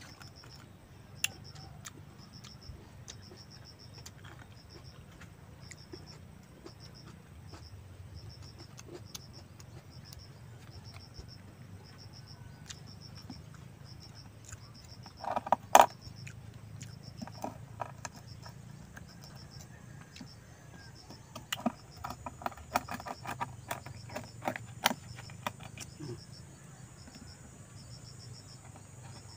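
Insect chirping, a short high trill repeated about once or twice a second, over a low steady hum. Over it, hard shells of crab and oyster click and crack as they are handled and pried open, loudest a little before halfway through, with a quick run of clicks near the end.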